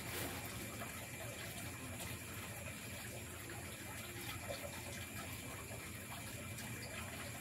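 Steady night-time forest ambience: a constant rushing hiss under several high, unbroken insect trills.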